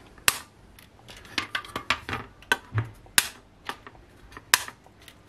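Side cutters snipping the excess wire leads of freshly soldered resistors on a circuit board: a string of sharp clicks, three of them louder than the rest.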